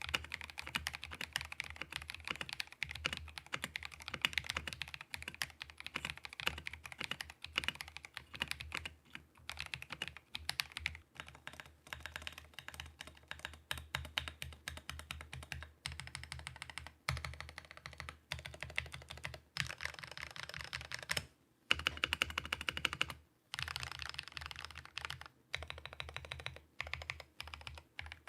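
Continuous fast typing on an NK87 custom mechanical keyboard with ASA-profile double-shot PBT keycaps: a dense stream of key clacks, with two short pauses about 21 and 23 seconds in.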